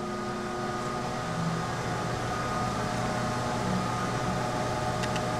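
Steady background hum and hiss with a few faint steady tones, and a couple of faint ticks near the end; the grinder itself is not running.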